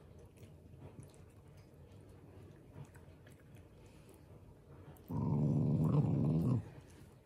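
Black Shiba Inu growling, one loud growl lasting about a second and a half, starting about five seconds in as a hand reaches to pat its head. The owner describes this growl as affection, not anger.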